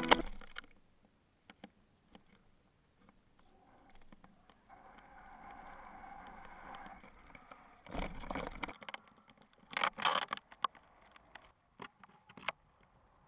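Wind buffeting and scattered knocks and rattles picked up by a falling weather-balloon payload's camera, with two louder gusts about eight and ten seconds in.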